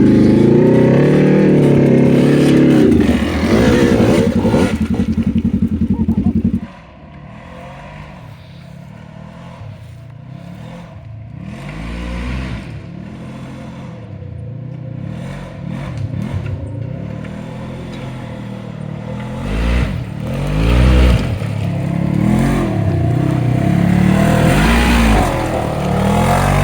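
Dirt bike engine revving close by for the first six seconds or so, then cutting suddenly to a more distant bike revving up and down again and again, louder toward the end as it works its way up the hill.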